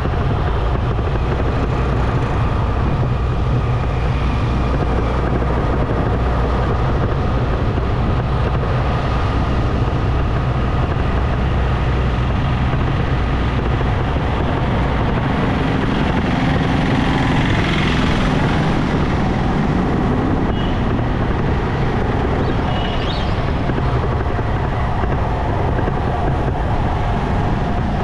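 A motorcycle ridden through town traffic: steady running and road noise with a strong low rumble and no pauses.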